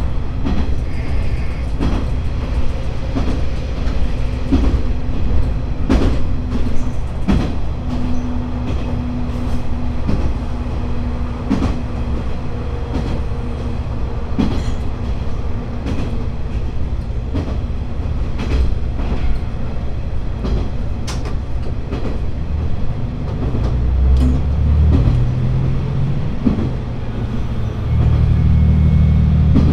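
Diesel railcar running along the line, with the rumble of the wheels and irregular clicks as they pass over rail joints. Near the end the diesel engine's note comes up louder and stays up.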